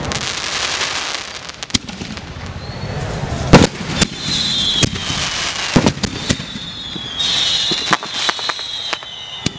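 Big aerial colour shells of a fireworks display: a string of sharp bangs from launches and bursts, the loudest about three and a half seconds in, over a crackling hiss at the start. A high whistle that falls slowly in pitch runs through the second half.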